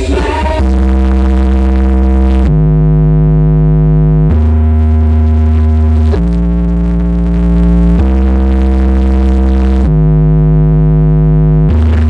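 Electronic DJ track played loud through a home-built sound system: sustained synthesizer chords that change about every two seconds over heavy deep bass.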